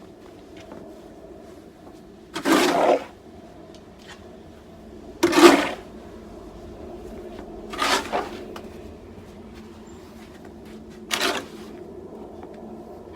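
Snow shovel scraping through thick snow, four strokes a few seconds apart, each about half a second long.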